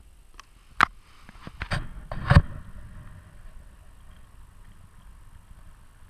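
Several sharp knocks and bumps in the first two and a half seconds, the last one the loudest, followed by a steady low rumble of wind on the microphone.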